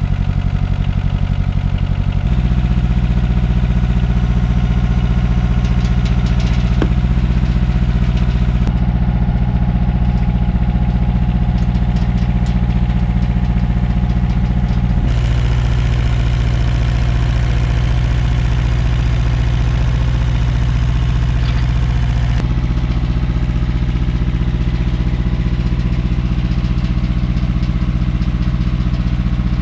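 Mini excavator's engine running steadily while its boom lifts a load. The engine note changes in steps about two seconds in, halfway through and about two-thirds through, with light clicks of metal in the first half.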